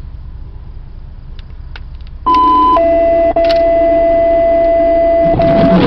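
Two-tone dispatch paging alert played over a scanner radio. After a couple of seconds of faint radio hiss, a higher tone sounds for about half a second, then a lower tone is held for about three seconds. These are the alert tones that page fire and ambulance units ahead of a dispatch.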